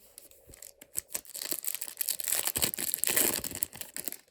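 A foil trading-card pack wrapper being torn open and crinkled by hand, a dense crackling that builds after about half a second, is loudest in the second half and stops suddenly near the end.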